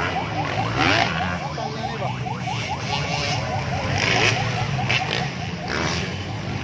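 Motocross dirt bike engines revving hard over a jump, with repeated quick rises in pitch and surges as bikes pass.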